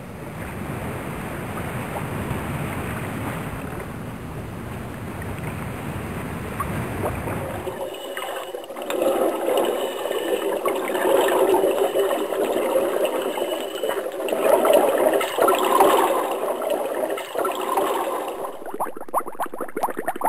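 Water sloshing close to the microphone at the surface, then from about eight seconds in a muffled, bubbly gurgling once the microphone is under the water beneath the ice.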